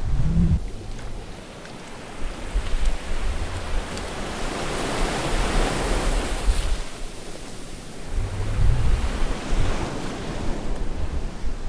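Ocean surf: waves washing in, the rush swelling to its loudest about halfway through and fading again, with low rumbles of breakers near the start and again late on.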